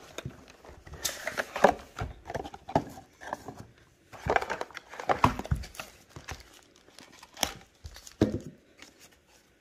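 Cardboard packaging being handled: a paperboard box slid out of its sleeve and opened, its flaps and paper inserts rustling and scraping, with occasional light knocks of the box on a wooden tabletop.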